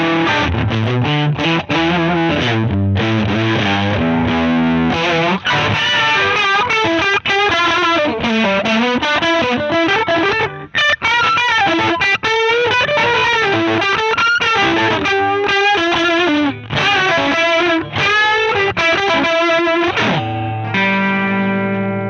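Distorted electric guitar played through a TC Electronic Mimiq Mini Doubler pedal, switched on to give a double-tracked guitar sound. It opens with chords, moves into a lead line of single notes with bends and vibrato, and near the end settles on a held, ringing chord.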